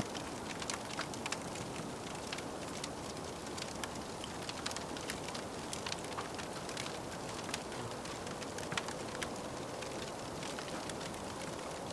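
Wood fire crackling in a wood-burning stove: irregular sharp pops and ticks over a steady soft hiss.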